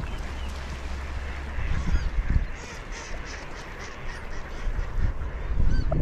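A flock of gulls calling as they circle over water, with ducks quacking among them. Wind rumbles on the microphone underneath.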